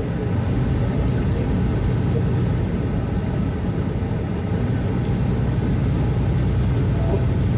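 Semi truck driving at speed: a steady low diesel engine drone and road noise, heard from inside the cab.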